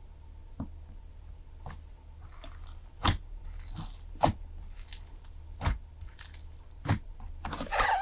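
Fluffy slime being squeezed and poked by hand, giving four sharp pops about a second apart from about three seconds in, then a burst of crackling near the end.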